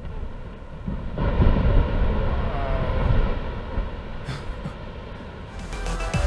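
Onboard audio from a 7-inch FPV quadcopter in flight: motor and propeller noise over a low, rushing rumble, growing fuller about a second in.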